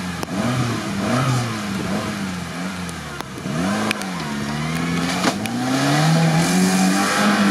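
Lada Niva's engine revving as it pushes through a flooded mud rut, the pitch rising and falling with the throttle, then climbing and holding higher over the last few seconds. Muddy water sloshing around the wheels.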